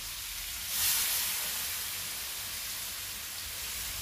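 A ladleful of hot water hitting a hot frying pan of baby cuttlefish and tomatoes: a sudden burst of steam and sizzling about a second in, settling into a steady sizzle.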